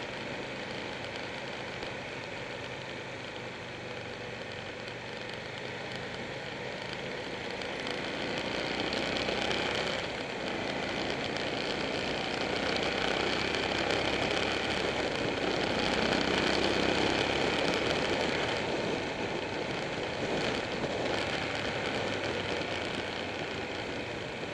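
Motorcycle engine running at road speed with wind and road rush, heard from a camera mounted on the moving bike; it grows louder through the middle and eases off toward the end.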